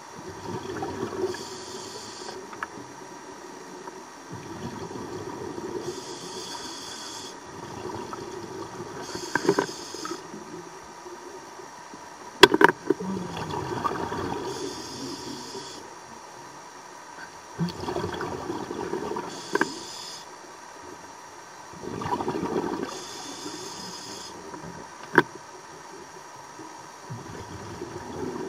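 A scuba diver breathing through a regulator: a hiss on each inhale and a gurgling rush of exhaust bubbles on each exhale, a breath about every four seconds. Two sharp clicks, one near the middle and one late on.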